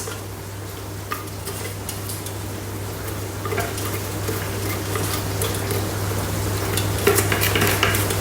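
A utensil stirring and tossing oil-coated Nutri-Grain cereal and nuts in a bowl: dry scraping and light clinks, getting busier near the end.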